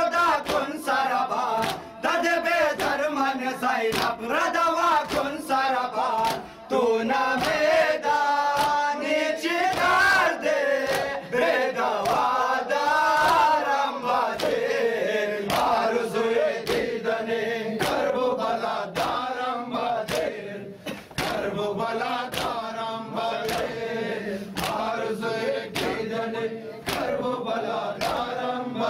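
Group of men chanting a nauha, a Shia mourning lament, in unison, with a steady beat of hands striking chests (matam) keeping time.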